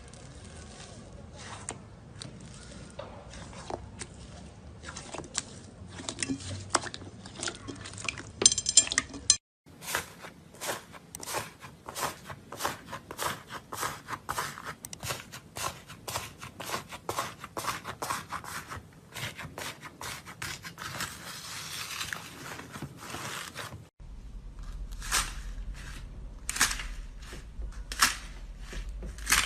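Slime being squeezed, poked and stretched by hand, making quick runs of sticky clicks and crackles. The sound breaks off abruptly twice, about nine seconds in and again near the end, and goes on with a different background each time.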